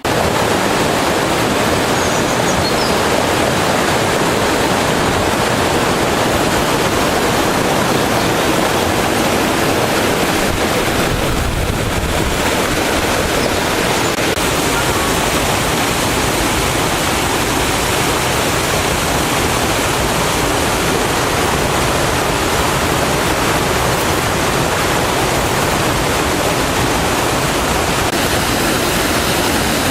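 Waterfall: falling water making a loud, steady rushing noise that cuts in suddenly.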